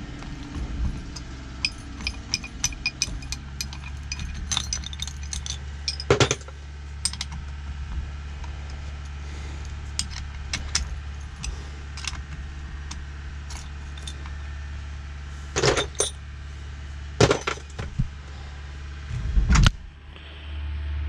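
Hand tools and loose metal parts clinking and clattering, many light clicks with a few louder knocks, during hands-on work on a truck's steering column. A steady low hum runs underneath.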